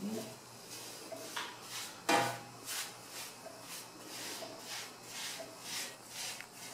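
Flat paintbrush bristles sweeping soot off the metal cooktop plate of a wood stove, in short, gentle strokes about two or three a second. One louder knock, the plate or brush handle striking, comes about two seconds in.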